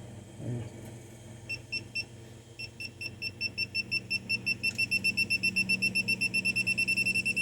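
Digital torque wrench beeping as a rocker-shaft bolt is pulled up toward its 30 lb-ft setting: a few short high beeps, then a quickening run of rapid beeps that signals the set torque is close.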